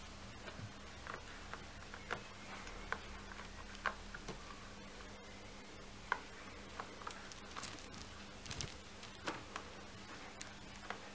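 Irregular light clicks and taps from a kitten batting at a feather wand toy on a carpeted cat-tree platform, over a faint steady hum.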